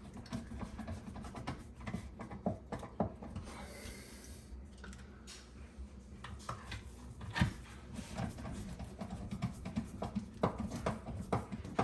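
Plastic dishwasher parts being handled and fitted back together: scattered light clicks and knocks, with a short scraping rub about four seconds in.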